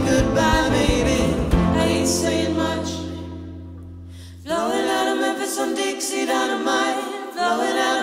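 Acoustic band music with singing, ending on a held chord whose low bass notes fade out. About halfway through, voices come in singing in harmony with no instruments: an a cappella passage.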